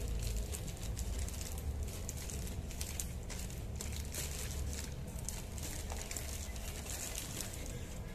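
Rustling and crinkling of packaging being handled, with many small irregular clicks over a steady low hum.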